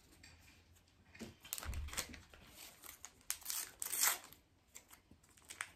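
A Panini Adrenalyn XL trading-card pack wrapper being crinkled and torn open by hand, in several short crackling bursts, the loudest about four seconds in.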